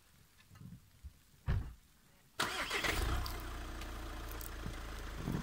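A thump about a second and a half in, then the Volkswagen SUV's engine starts suddenly a little later and settles into a steady idle.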